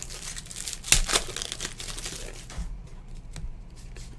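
Wrapper of a trading-card pack crinkling as it is torn open, with a sharp crackle about a second in. It goes quieter after about two and a half seconds, leaving a few light ticks of cards being handled.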